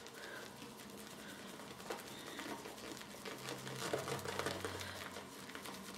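Shaving brush working shaving soap into a tight, creamy lather in a bowl, a faint steady crackling swish.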